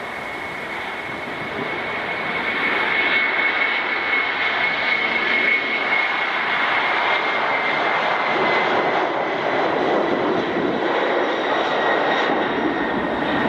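Boeing 747-400F's four jet engines at taxi power: a steady high whine over a broad rush of engine noise, growing louder over the first few seconds as the freighter taxis closer, then holding steady.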